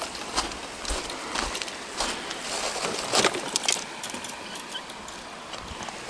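Footsteps crunching on a gravel shore, irregular and about two a second, fewer after about four seconds.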